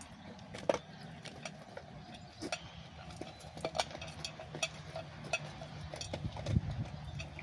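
Basset hound eating from a metal bowl: irregular clicks and crunches of chewing and the bowl clinking, a few a second, over a low steady hum.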